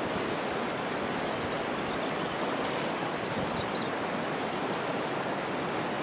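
Shallow river riffle flowing over stones: a steady, even rush of running water.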